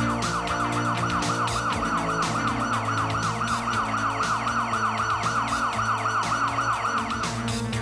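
Electronic siren sound effect: a falling tone repeated about four times a second, over background music with a steady beat. The siren stops shortly before the end.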